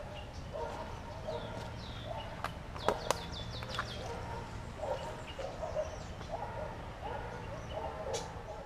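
Birds calling in a mangrove: repeated short bouts of low, cackling chatter, with higher falling chirps in the first half. Two sharp clicks come about three seconds in.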